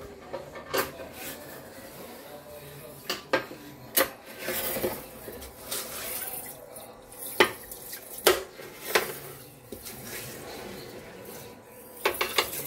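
Clinks, knocks and scrapes of aquarium gravel and a brush against a glass fish tank sitting in a stainless steel sink: sharp knocks at irregular intervals with softer scraping in between.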